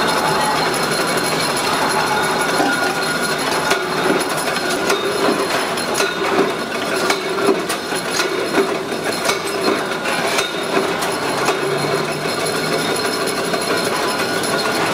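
Steady din of metal-pressing machinery in an aluminium cookware workshop, with scattered metallic clanks and knocks throughout.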